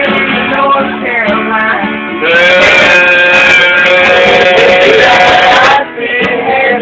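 Acoustic guitar played live with voices singing, in a loud room; from about two seconds in, a single note is held loud and steady for over three seconds before the notes start moving again.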